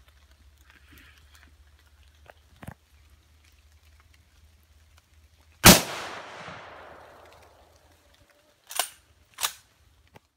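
A single hunting rifle shot a little over halfway through, its report echoing away for about two seconds. About three seconds later come two sharp clacks half a second apart.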